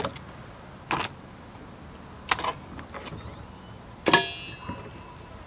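Knife chopping through cooked Dungeness crab shell on a wooden cutting board: a handful of sharp, irregularly spaced knocks. About four seconds in, one knock carries a short metallic ring.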